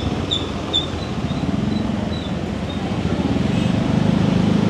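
Motor scooter engine running under way in street traffic, growing louder with its pitch rising toward the end as it speeds up. A few short high chirps sound in the first second.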